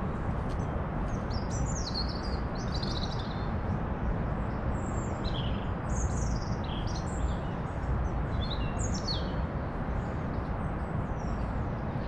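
Small wild songbirds calling in quick high chirps that slide downward in pitch, in one run about a second and a half in and another from about five to nine seconds in, over a steady low rumble of background noise.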